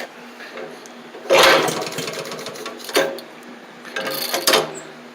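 Maytag twin-cylinder two-stroke gasoline washing-machine engine being started, firing in three short sputtering bursts about a second in, near three seconds and near four seconds, each dying out without catching. The owner puts the hard starting down to the engine struggling to get fuel.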